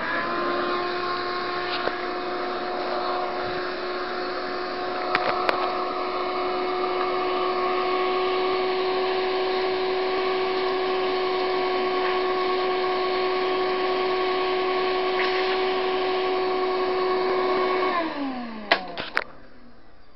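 Shop vac switched on and running steadily with a constant whine. Near the end it is switched off and the motor winds down, falling in pitch, with a few sharp clicks as it stops.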